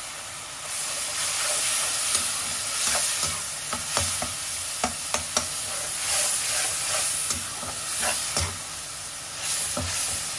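Onion-tomato masala sizzling and simmering in a metal karahi with a little water just added, while a perforated metal spoon stirs it, scraping and clicking against the pan.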